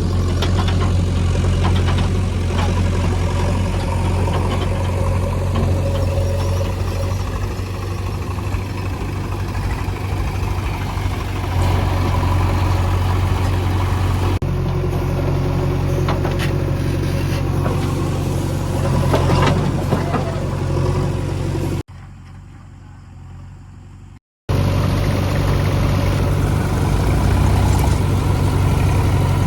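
Diesel engine of a backhoe or tractor running steadily at a low, even speed. It drops away for about two seconds near the end, then comes back.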